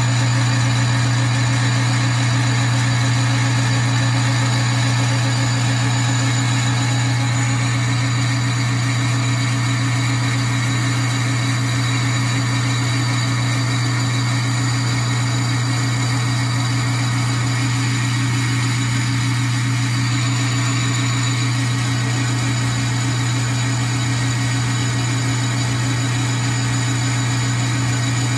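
Metal lathe running steadily while a high-speed steel tool takes a turning cut along a 12L14 leaded steel bar: a steady low hum from the lathe's motor and drive.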